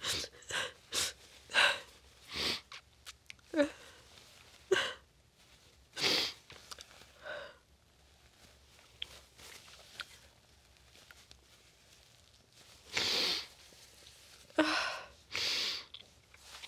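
A woman crying: repeated sniffles and shaky, catching breaths, a few breaking into short voiced sobs, with two longer, louder breathy bursts near the end.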